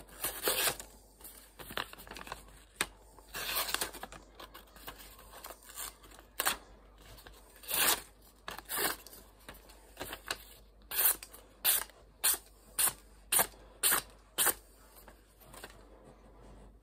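Freshly sharpened Fallkniven F1 VG10 knife slicing through sheets of paper in a series of short swishing cuts. The cuts are scattered at first, then come quickly and evenly, about two a second, in the second half. It is a paper-slicing test of the new edge, which cuts surprisingly well.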